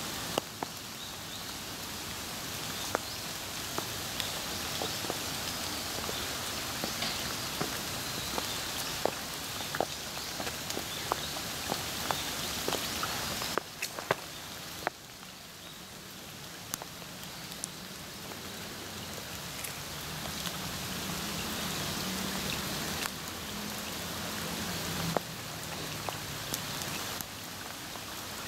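Steady rain falling on a garden, an even hiss broken by many scattered sharp ticks of single drops.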